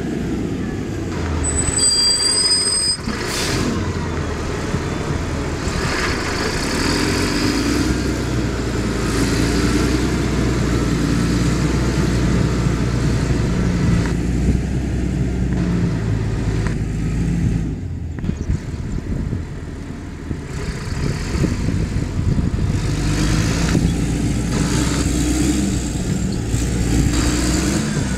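TerraGator 8104 floater's diesel engine running as the machine drives and turns, its note rising and falling with the throttle. A brief high whistle sounds about two seconds in.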